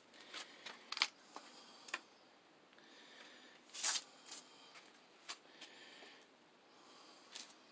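Faint handling noise: scattered light clicks and short rustles, the loudest a brief rustle about four seconds in.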